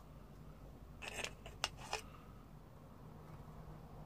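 Brush scratching and tapping as yellow ochre paste is dabbed onto small, thin silver bezel caps: a short scratchy stroke about a second in, then a sharp click and a second, softer one, over a faint steady hum.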